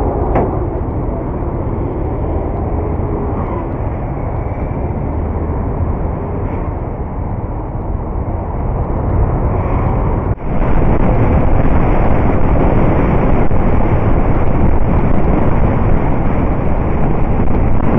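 Helmet-camera road noise from a riding scooter: engine and traffic noise at low speed, then after a sudden break about ten seconds in, a louder, steady rush of wind on the microphone at highway speed.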